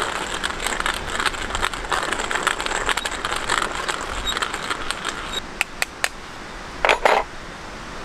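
Hand coffee grinder being cranked, the beans crunching with a dense gritty crackle that stops about five and a half seconds in. A few sharp clicks follow, then a short loud clatter about seven seconds in as the grinder is handled.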